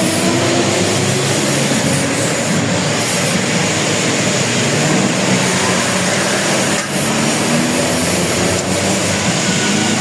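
Machinery running steadily in a machine shop: a loud, even whir with a low hum.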